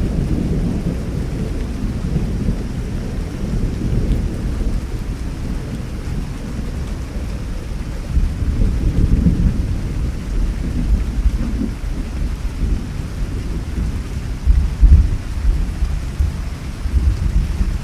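Thunderstorm: steady rain with deep, rolling thunder rumbling throughout, swelling louder about halfway through and again near the end.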